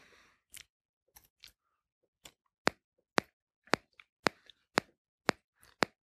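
Waving lucky-cat figurine (maneki-neko) clicking with each swing of its arm. The clicks are sharp and short; a few faint ones come first, then louder ones about twice a second.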